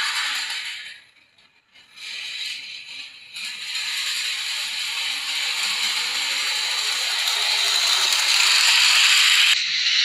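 Small electric motor and gears of a toy model train running with a steady, high whirring rattle. It drops out about a second in and comes back, then cuts off sharply just before the end.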